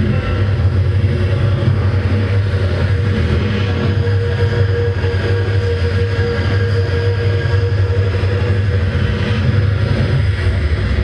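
Live band playing a loud, steady drone passage through the PA: a heavy bass drone with sustained higher tones held over it and no drum hits.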